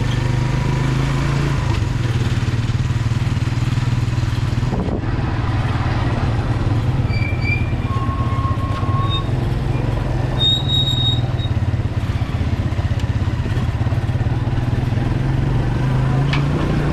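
Small motorcycle engine pulling a sidecar, running steadily at low cruising speed. A few short high-pitched tones sound midway.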